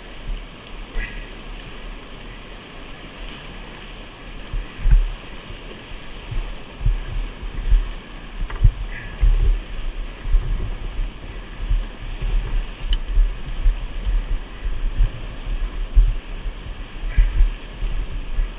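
Whitewater rapid rushing steadily nearby. From about five seconds in, frequent irregular low thumps come through it.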